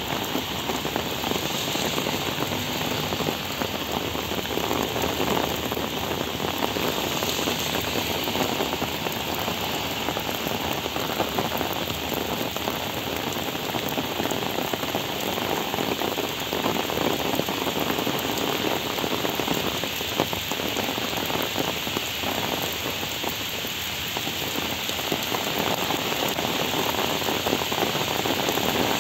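Heavy rain pouring steadily onto flooded paving and standing water.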